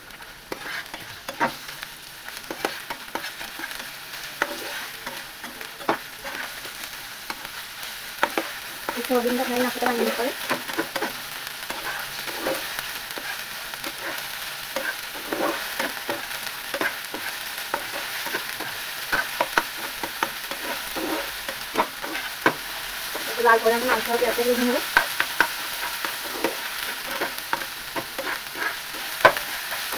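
Chopped onion and minced meat sizzling in hot oil in a non-stick frying pan, stirred with a metal spatula that scrapes and taps against the pan many times. Twice, about nine seconds in and again near twenty-four seconds, a short steady pitched sound lasting over a second rises above the sizzle.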